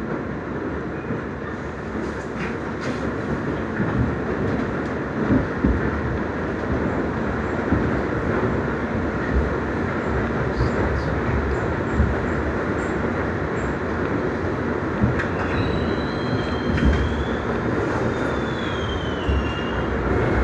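Interior noise of a moving R62A subway car on the 1 train: a steady rumble and hiss of wheels on rail with scattered knocks from the track. Near the end a thin, high squeal rises and falls for a few seconds.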